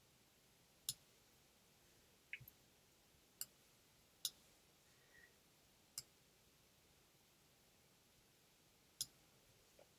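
Computer mouse clicking: about six short, sharp single clicks at uneven intervals against near-silent room tone.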